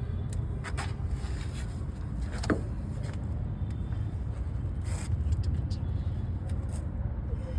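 A steady low rumble with a few scattered knocks and scrapes, the sharpest one about two and a half seconds in.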